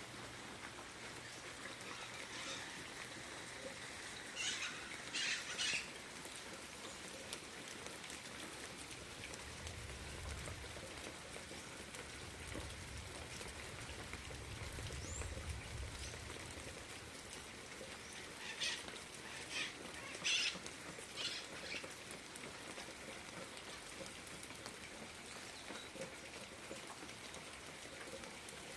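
Birds chirping in two short flurries of quick calls over a steady outdoor hiss, with a low rumble for a few seconds midway.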